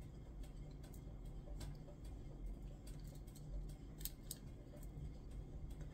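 Faint, scattered clicks of small metal beads and findings knocking against the bowl and each other as the spacer bead is picked out and threaded onto the earring pin, over a low steady hum.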